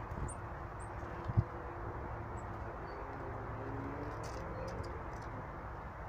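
Steady low outdoor background rush, broken by a single sharp thump about a second and a half in, with a few faint, very short high bird chirps scattered through.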